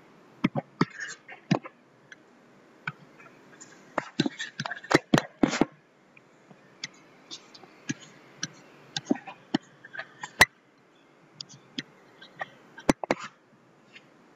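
Irregular light clicks and taps with faint scratching: a stylus drawing on a tablet screen. The sharpest clicks come about five seconds in and again near ten and thirteen seconds.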